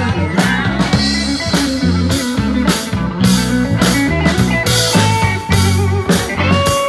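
Blues band playing live: an electric guitar through a Vox amp plays a lead line with bent notes, over a drum kit. It holds a long note near the end.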